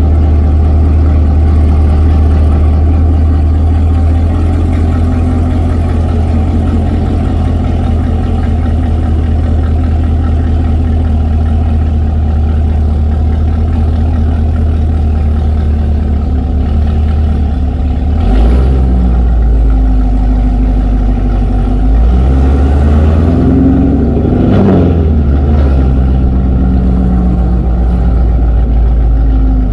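Supercharged 6.2-litre V8 of a Chevrolet Camaro ZL1 with Kooks long-tube headers, green cats and an AWE exhaust, running loudly at idle and light throttle as the car rolls slowly, heard from a camera at the rear of the car. The note shifts about two-thirds of the way in, then rises and falls a few times near the end.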